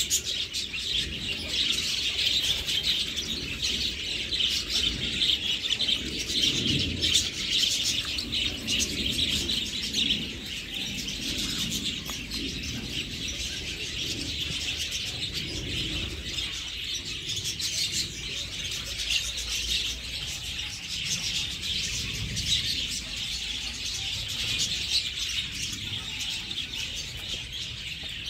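Many birds chirping and chattering at once in a dense, continuous chorus of short high chirps.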